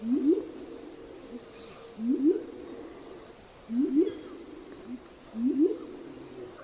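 Violaceous coucal calling: four low calls evenly spaced about every second and a half to two seconds, each a quick pair of upward-sweeping notes.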